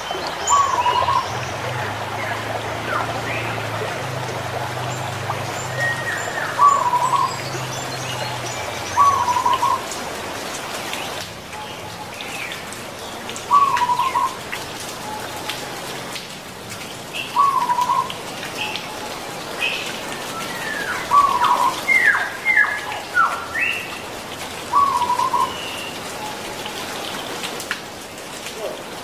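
Zebra dove (perkutut) cooing in short trilled phrases, seven of them a few seconds apart, with chirps of other small birds among them. A steady hiss lies underneath.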